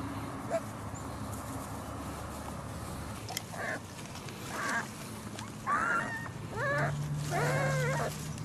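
Six-week-old dachshund puppies yipping and whining: a run of five or six short high cries starting about halfway through, each longer and louder than the last, ending in a drawn-out whine.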